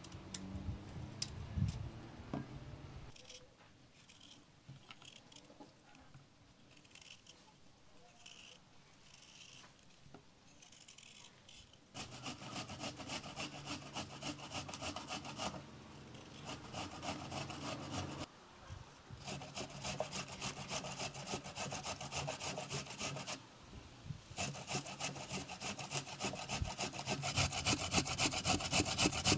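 Quince being grated on a metal box grater: fast, rhythmic rasping strokes that start a little before halfway, after a quieter stretch, and stop briefly twice.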